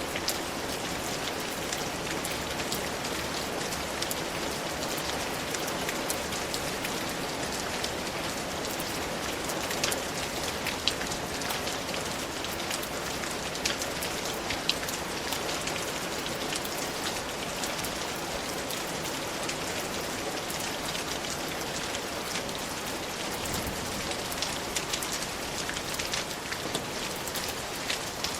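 Steady rain falling, a continuous hiss with individual drops pattering through it and a few louder drops now and then.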